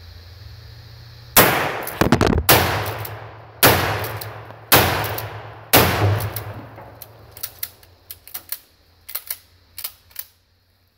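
Five 12-gauge shotgun slug shots fired about a second apart, each loud and trailing off in a rolling echo. A few faint clicks and knocks follow.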